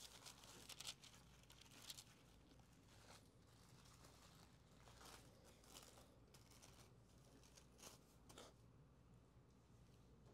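Faint rustling of thin Bible pages being turned, a scatter of soft swishes and crinkles over a low steady hum.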